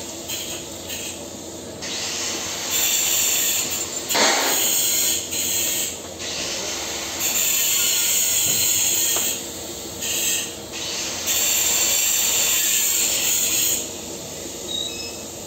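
TIG welding torch hissing on and off in several bursts of one to three seconds, with a short metallic clack about four seconds in.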